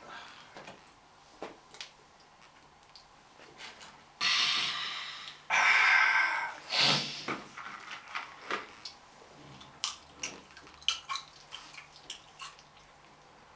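Beer drunk from glass bottles: small clicks and taps of the bottles, and in the middle three loud breathy exhalations of about a second each.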